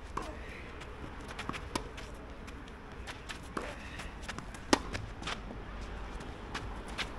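Tennis ball impacts on a court, racket strikes and bounces, as sharp single knocks a second or more apart, the loudest nearly five seconds in, with light scuffing footsteps between them.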